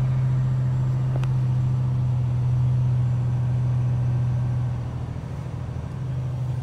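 Semi truck's diesel engine running at low speed, heard from inside the cab as a steady low drone that eases off briefly about five seconds in; a faint click about a second in.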